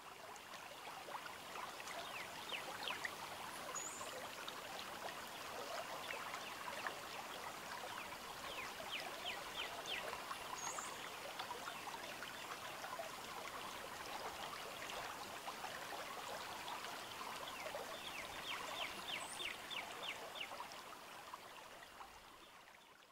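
Soundtrack of a bird video playing through a television's speakers: a steady, stream-like trickling rush with a few short, high bird chirps and brief runs of fast ticking. It fades out near the end.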